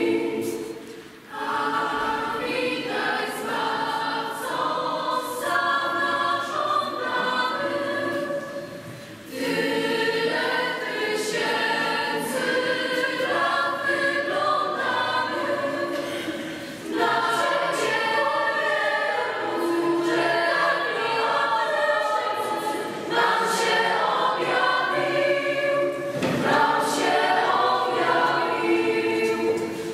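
Mixed choir of girls and boys singing a Polish Christmas carol (kolęda), with short pauses between phrases about a second in and again near nine seconds.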